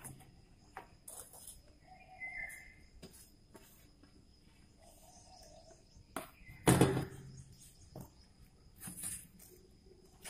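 Soft handling sounds of grated bottle gourd being scooped off a steel plate onto a fine cloth: scattered light scrapes and taps, with one louder knock a little after the middle. A few faint bird chirps in the background.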